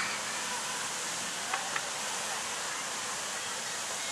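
Steady outdoor hiss with faint distant voices, and two brief clicks about a second and a half in.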